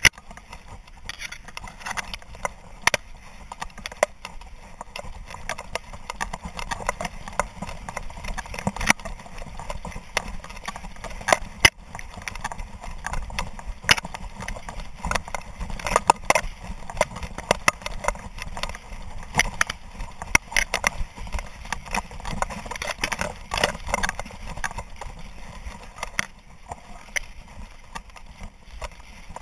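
Dry grass brushing and scraping against a dog's collar-mounted camera as the dog runs through a field, with the dog's quick footfalls and frequent sharp knocks and clicks throughout.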